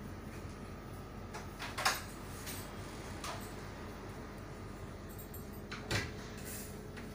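Steady low hum of room tone, broken by two brief knocks, about two seconds in and again near the end.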